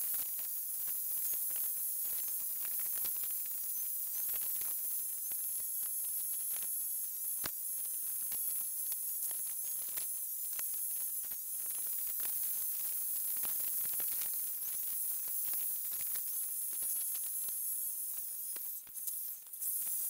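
Steady high hiss with faint scattered clicks.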